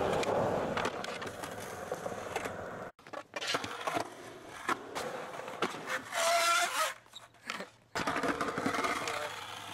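Skateboard on concrete: wheels rolling, then sharp clacks of the tail popping and the board landing and slapping the ground during flip tricks. The sound breaks off abruptly about three seconds in and again about eight seconds in.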